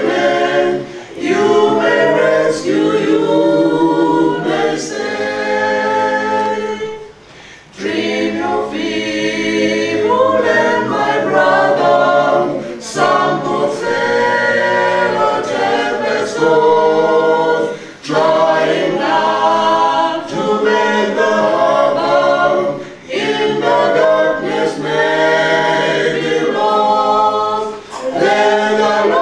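Small group of voices singing a hymn a cappella, in long sung phrases with short breaks between them.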